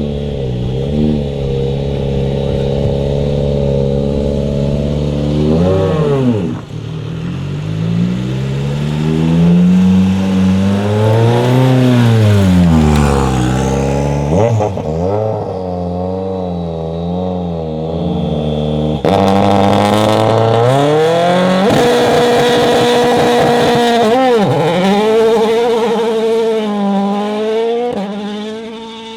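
Toyota Yaris WRC rally car's 1.6-litre turbocharged four-cylinder engine revving hard at speed, its pitch climbing and dropping again and again through gear changes and lifts. The sound switches abruptly to a louder passage about two-thirds through and fades near the end.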